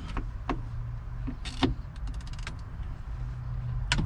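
Hand tools being handled, with scattered clicks and knocks and a short run of rapid ratchet clicks about two seconds in. A steady low hum runs underneath.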